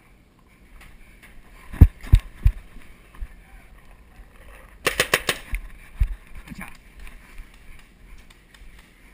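Paintball markers firing: three dull thumps, then about five seconds in a quick burst of about six sharp pops within half a second, and one more thump after.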